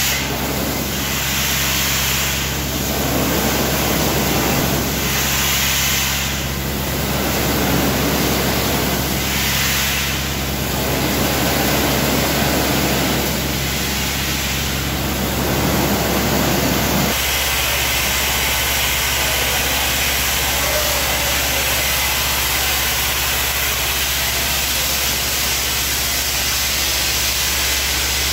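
Shotcrete sprayed from a hose nozzle onto steel reinforcing mesh: a steady rushing hiss over the low hum of the pumping machinery. The spray swells and eases every few seconds at first, and the machine hum changes abruptly about two-thirds of the way through.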